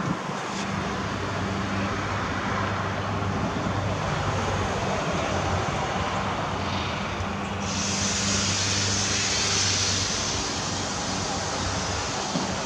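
Steady road traffic noise with a low engine hum running throughout; a high hiss joins a little past the middle.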